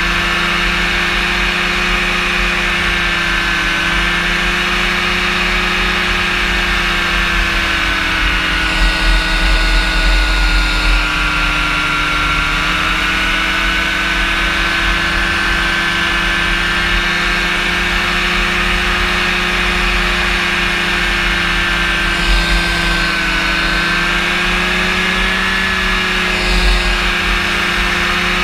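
The Rotax engine and propeller of a powered parachute running steadily in cruise, the pitch drifting slightly up and down. Wind buffets the microphone a few times.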